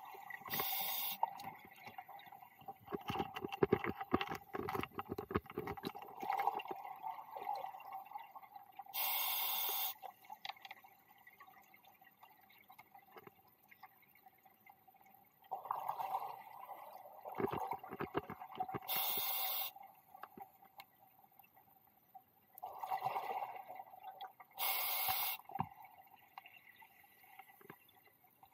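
Scuba diver breathing through a regulator underwater: a short hiss on each of four inhales, with bursts of exhaled bubbles rumbling and gurgling between them in a slow, even cycle.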